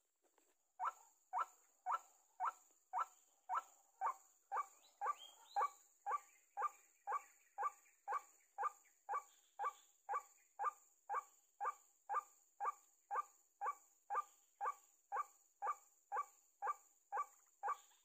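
White-breasted waterhen call: a short note repeated steadily, about twice a second, starting about a second in.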